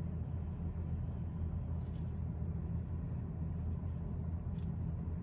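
Steady low background hum with a couple of faint ticks.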